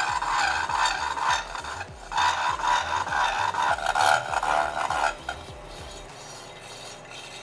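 Slitting saw on a milling machine cutting a slot through a steel bicycle seat tube and lug, a steady gritty cutting noise with a low pulsing under it. The cutting stops about five seconds in as the saw breaks through, leaving the mill running more quietly.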